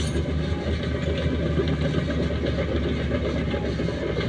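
LiuGong crawler bulldozer's diesel engine running steadily under load as the dozer pushes soil, a constant low drone.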